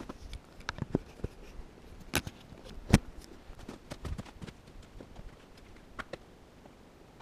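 Footsteps in snow and a few knocks and thumps from handling gear, spaced irregularly; the loudest is a sharp knock about three seconds in. No chainsaw is running.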